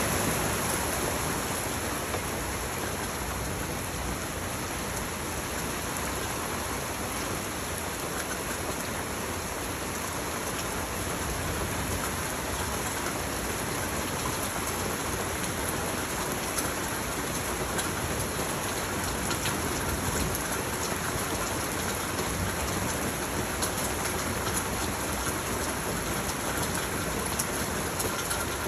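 Heavy thunderstorm downpour: rain pouring steadily, an even hiss of drops that holds at the same level throughout.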